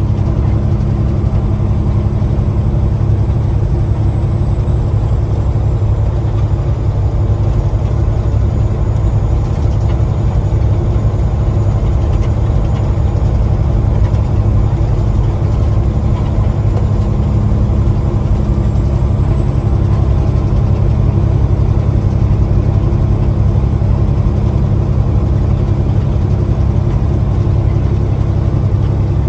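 Semi truck's diesel engine running steadily as a loud, even low drone, with a faint high whine above it that rises a little about twenty seconds in.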